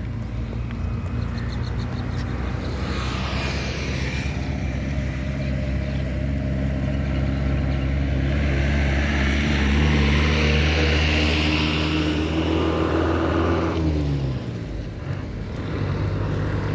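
A motor vehicle engine running with a steady hum that grows louder toward the middle. About fourteen seconds in, its note falls in pitch and it briefly drops away, then a steady hum returns near the end.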